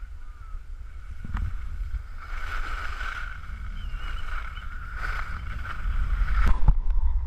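Wind buffeting a pole-mounted GoPro's microphone while skis hiss and scrape over packed snow, getting louder toward the end as speed builds, with a few sharp knocks.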